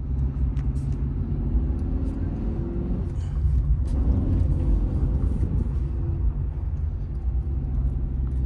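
Car driving: a steady low engine and road rumble, the engine note climbing for a couple of seconds and dropping about three seconds in.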